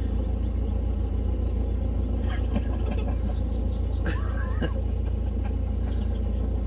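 Narrowboat's inboard diesel engine running steadily, a constant low hum. A brief high-pitched sound about four seconds in.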